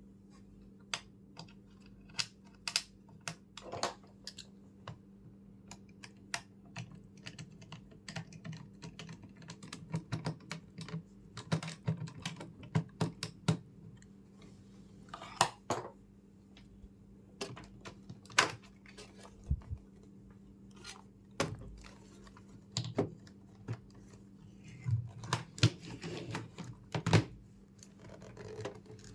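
Irregular clicks, taps and knocks of computer hardware being handled and fitted together during assembly, some sharp and loud, over a faint steady low hum.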